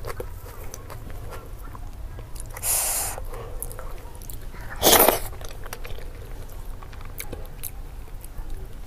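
Close-miked eating sounds of a person chewing dhido and chicken curry eaten by hand: soft wet chewing and mouth clicks, with two louder rushing bursts about three and five seconds in, the second the loudest.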